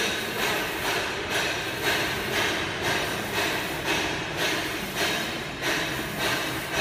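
UV flatbed printer running as it prints on ceramic tile, its print carriage shuttling back and forth: a rhythmic mechanical whir that swells sharply and fades away about once every 0.6 seconds.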